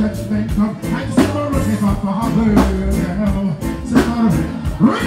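Live reggae music over a concert sound system: a band with a steady drum beat and bass, and a male vocalist singing into a microphone.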